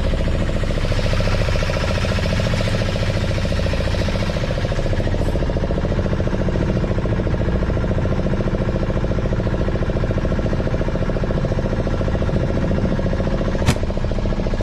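Fishing boat's engine idling steadily, with one sharp click near the end.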